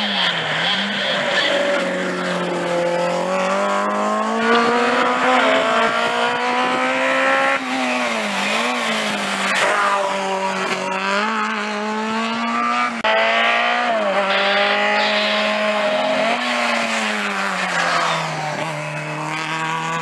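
Small-engined classic racing cars running flat out one after another, their engines held at high revs with the pitch dipping and climbing again as the drivers lift and get back on the throttle through the slalom chicanes. The sound cuts abruptly from one car to the next several times.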